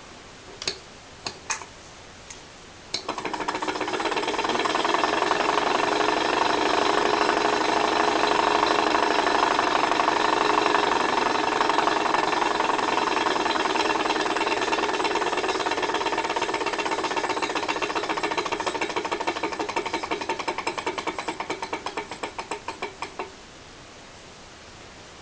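A few clicks, then about three seconds in the Wilesco H110 Stirling engine starts running with a fast, even mechanical clatter. Near the end the strokes slow into separate beats and stop.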